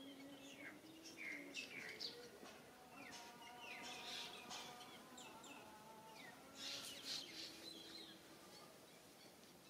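Faint chirping of small birds: scattered short, high calls, clustered about one to five seconds in and again around seven seconds.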